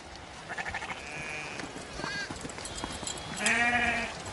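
Sheep bleating several times with quavering calls, the loudest and longest bleat coming near the end.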